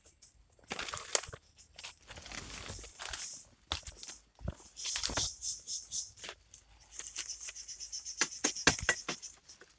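Footsteps and bodies pushing through dry leaf litter and undergrowth: irregular crunching, rustling and snapping of dead leaves, twigs and palm fronds, with a few sharper cracks.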